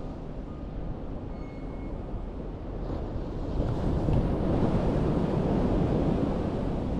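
Sea surf on the beach, a wash of waves that swells louder about halfway through as a wave breaks, with wind buffeting the microphone.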